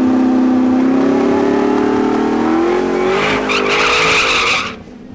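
Chevrolet Camaro ZL1's supercharged V8 revving higher and higher in a burnout. From about three seconds in, the rear tyres spin and squeal in smoke. The sound cuts off suddenly near the end.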